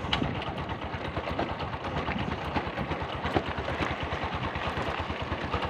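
Motorcycle engine running at an even pace while being ridden, heard from the rider's seat, over a steady hiss of wind and road noise.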